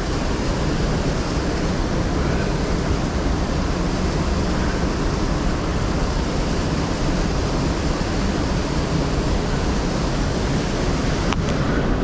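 Fast-flowing river water rushing over rocks, a steady rush with no change, with a single short click near the end.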